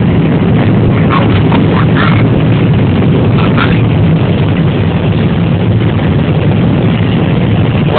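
John Deere 9770 combine harvesting corn, heard from inside the cab: a steady, loud drone of the engine and threshing machinery.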